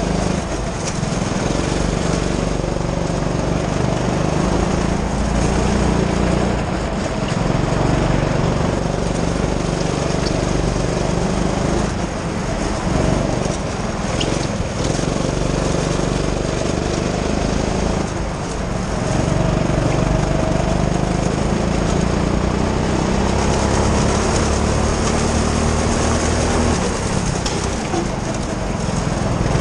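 Go-kart's small engine running hard around a track, its pitch climbing and falling as the throttle is worked, heard from the driver's helmet.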